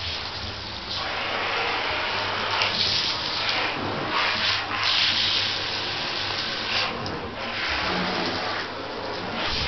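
Water running steadily into a bathtub, a continuous rushing hiss.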